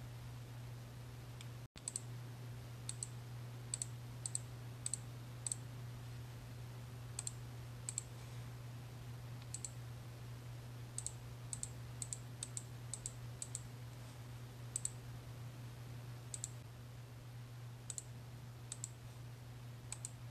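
Computer mouse clicking: sharp, single clicks at irregular intervals, a couple of dozen in all, over a steady low hum.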